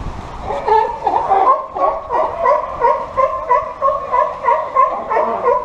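Sea lion barking over and over in a fast, even string of about three barks a second.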